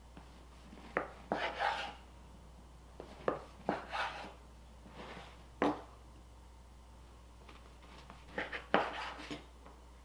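Kitchen knife cutting through stacked slices of gluten-free bread on a bamboo cutting board: a short rasp through the bread and a sharp tap each time the blade meets the board, several times with pauses between cuts.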